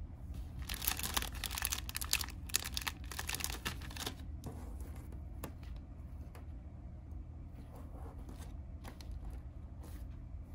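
Hands handling a disposable face mask and paracord lanyards on a tabletop: crinkling and rustling with small clicks, busiest over the first four seconds and sparser after, over a low steady hum.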